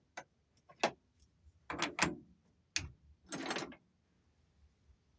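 Small metal tools or parts being handled at a lathe: a run of sharp clicks and knocks with a short rattle about three and a half seconds in.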